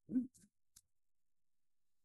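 A man's voice making a brief wordless hesitation sound, a short hum or grunt, right at the start, followed by silence.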